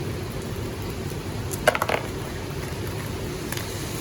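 Small stones clicking together in a quick cluster a little before halfway, with one faint click near the end, over a steady low rush of water.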